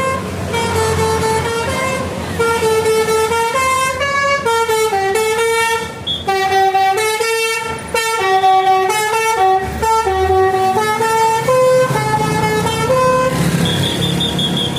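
A bus's telolet horn, a multi-tone air horn, playing a tune of quick stepped notes for about thirteen seconds, then stopping. A low engine rumble runs underneath, and a short high steady tone follows near the end.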